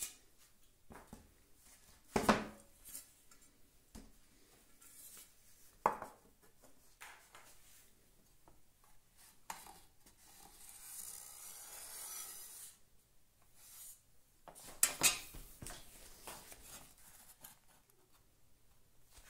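Pencil scratching on a wooden board as a line is marked out, with a few light knocks and clatters of tools set down on the wood.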